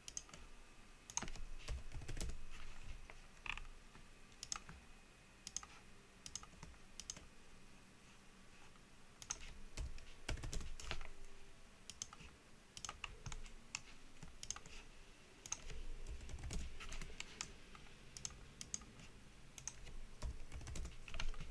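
Computer keyboard keys and mouse clicks tapped intermittently, irregular sharp clicks at a low level.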